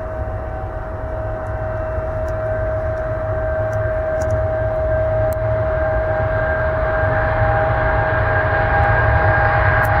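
Cargolux Boeing 747-8F's four GEnx-2B67 turbofans running with a steady high whine over a low rumble, growing gradually louder.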